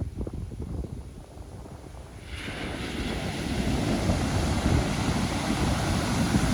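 Pacific Ocean surf: low rumbling with wind buffeting the microphone, then about two seconds in a wave breaks and its wash rises into a broad, steady hiss.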